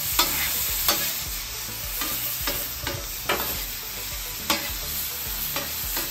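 Cubed beef tenderloin steak bites sizzling as they sear on a hot steel flat-top griddle. Metal spatulas scrape and clack against the griddle surface several times at uneven intervals as the bites are tossed.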